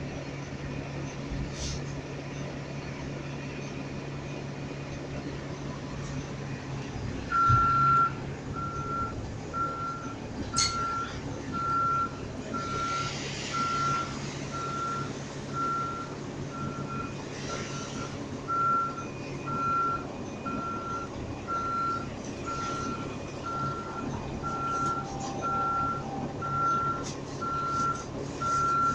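Vehicle backup alarm beeping: one high steady tone repeated at an even pace, starting with a knock about seven seconds in, over a low steady hum.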